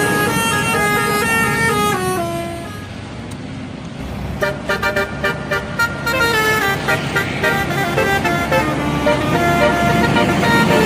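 Indonesian bus telolet horn playing a tune of stepped horn notes, fading briefly about three seconds in, then a quick run of short toots before the melody carries on.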